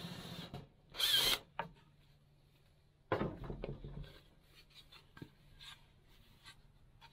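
Cordless drill boring a finger hole through a wooden board: the steady whine stops about half a second in, followed by a short loud burst of drilling about a second in. About three seconds in comes a loud clatter as the drill is put down on the metal saw table, then light knocks as the board is handled.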